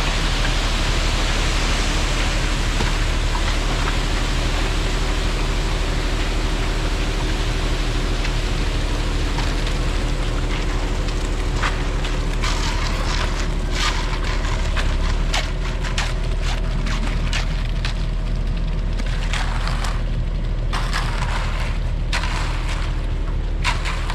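An engine runs steadily under a loud rushing hiss. After about ten seconds the hiss thins out, and scattered sharp clicks and knocks come in.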